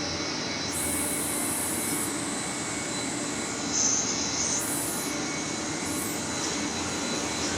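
Steady industrial machinery running, an even noise with a faint steady hum and whine, and brief bursts of high hiss that switch on and off a few times.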